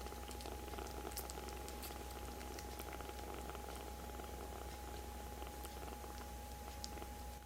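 Kitten purring steadily, with a few faint clicks over it.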